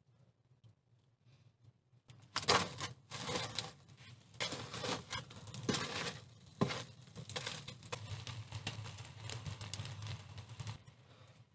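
Faint crackling of embers in a stove firebox, then about two seconds in a dense run of clattering, scraping and knocks as firewood is pushed in among the coals, dying back down near the end.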